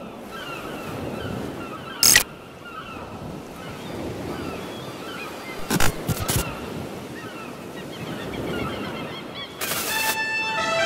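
Outdoor ambience with many short bird calls over a steady hiss, broken by three brief rushing noise bursts. Music with held notes starts near the end.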